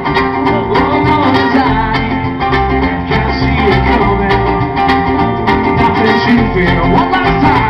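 Live folk-pop band playing, amplified through a stage PA: strummed acoustic guitar over electric bass and cajon, with trumpet.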